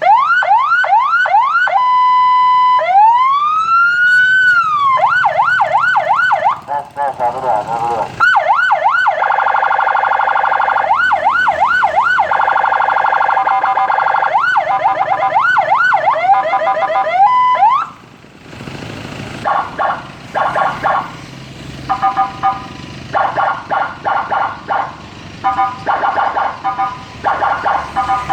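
Electronic patwal-style escort siren cycling through its tones: fast rising yelps, a steady tone, a slow wail that rises and falls, then rapid whooping sweeps. About two-thirds of the way in it drops to quieter short repeated blasts.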